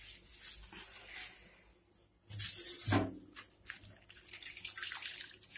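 Water sloshing and splashing in a stainless steel plate as a cleaning cloth is dipped and swished in it by hand, starting about two seconds in and going on in quick uneven splashes.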